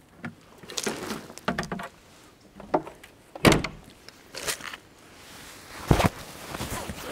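A run of knocks and clunks as kit is handled at a vehicle, about eight in all, the two loudest about halfway through and again near the end.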